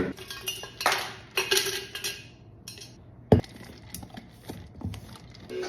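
Small hard objects clinking and clattering as they are handled and set down, with one sharp knock about three seconds in.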